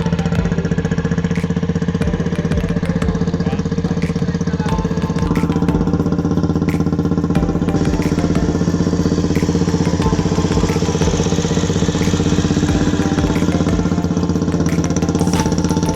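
Bajaj Pulsar 150's single-cylinder four-stroke engine running steadily with a fast, even pulse, its note shifting slightly about five seconds in.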